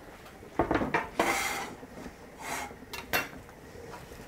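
Stainless steel saucepans and a lid clanking on a gas stovetop: a few sharp metal clanks and a scrape between about half a second and a second and a half in, then a lighter clink near three seconds.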